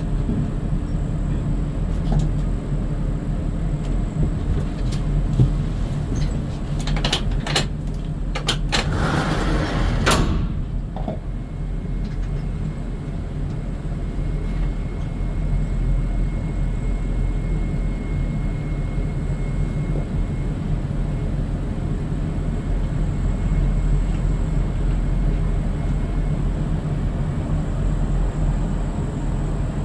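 Steady low rumble of a running motor vehicle, with a brief burst of clatter and hiss about eight to ten seconds in that cuts off sharply.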